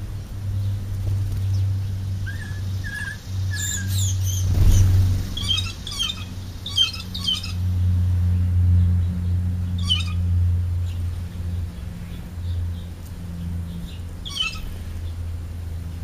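House sparrows chirping in short scattered bursts over a steady low hum, with a brief rush of noise about four to five seconds in.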